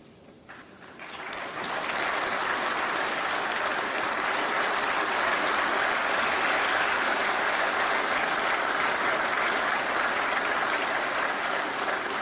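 Audience applauding, swelling up over the first two seconds and then holding steady.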